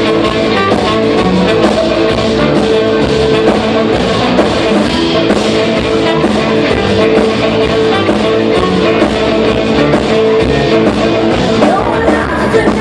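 Live rock music: guitar played over a steady, even beat.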